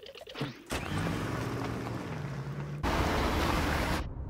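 Animated sound effect of a large truck's engine starting and running with shifting pitch, rising to a louder revving rush about three seconds in, then cutting off abruptly.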